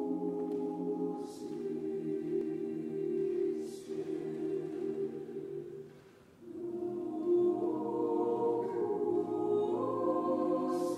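Choir singing slow, held chords. The singing dips and fades about six seconds in, then swells back, with the chord stepping up in pitch near the end.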